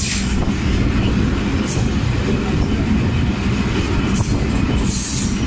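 Diesel-electric locomotive of class ZCU-20 (GE U20C) working under power, heard from close behind it: a heavy, steady engine rumble. A few brief hissing rushes of noise come and go over it.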